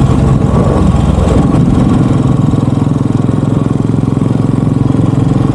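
Royal Enfield Bullet 350's single-cylinder engine running while riding, its pitch shifting in the first second or so and then holding steady.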